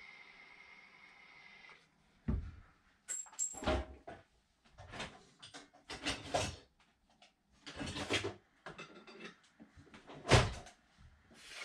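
Handling noises from tools and parts being moved about: a string of separate knocks, clatters and thuds, with a sharp knock, the loudest, about ten seconds in. Faint background music ends about two seconds in.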